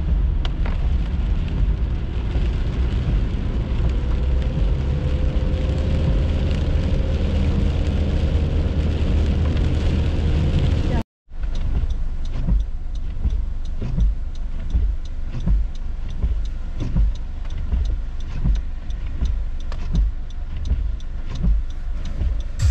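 Car driving in heavy rain, heard from inside the cabin: steady road and rain noise from wet tyres, with a faint rising hum about four seconds in. It breaks off abruptly about eleven seconds in, then continues lighter, with many short irregular knocks and splashes as the car moves along a flooded road.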